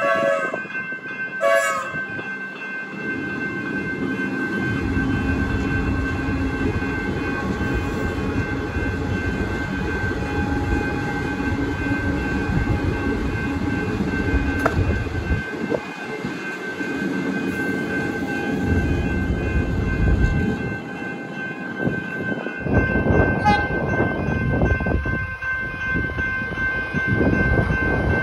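Level crossing warning bell ringing steadily while an electric suburban train runs across the crossing, its wheels and motors making a heavy rumble that lasts to the end. Two short horn blasts sound at the start, and another brief one comes about 23 seconds in.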